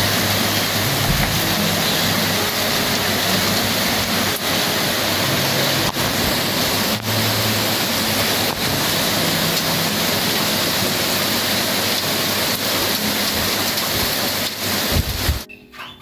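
Heavy rain pouring steadily, a dense hiss of rain on pavement and grass with a few sharp taps, cutting off abruptly about a second before the end.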